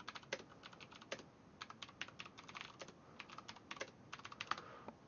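Typing on a computer keyboard: faint, quick runs of keystrokes broken by short pauses.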